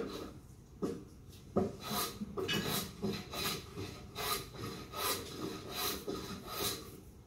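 Hand plane shaving a wooden beam in a run of short, repeated strokes, about one to two a second. It is cutting over a knot, where the grain changes direction and the blade doesn't want to go.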